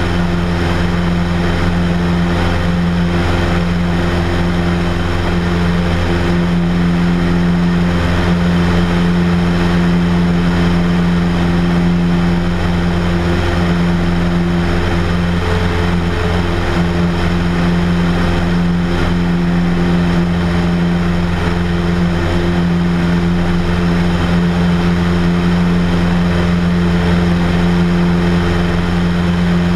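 Cessna light aircraft's piston engine and propeller running at a steady power setting in flight, an even drone that does not change, mixed with the rush of airflow over the outside-mounted camera.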